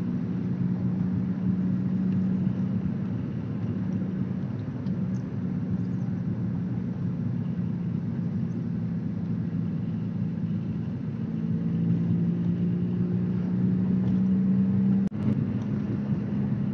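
Engine hum and road noise heard from inside a moving vehicle: a steady low drone that climbs in pitch and grows louder about twelve seconds in as the engine revs rise. A single sharp click cuts through it near the end.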